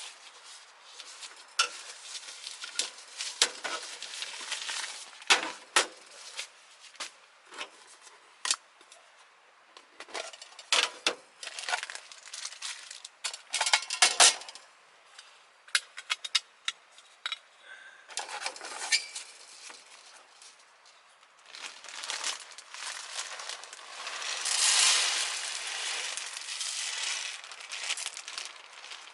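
Camp cookware and utensils clinking and knocking in many short, irregular strikes, with crinkling of packaging. A longer rushing sound runs through the last few seconds.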